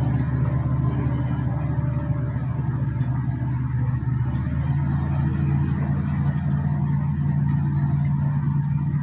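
SD16 crawler bulldozer's diesel engine running steadily, a constant low drone; its tone shifts slightly about halfway through.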